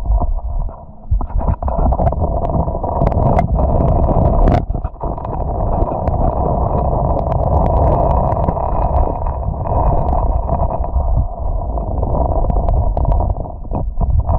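River current heard underwater through a camera's waterproof housing: a muffled, steady low rumble and throb, with scattered sharp clicks and taps, a cluster of them about three to four and a half seconds in.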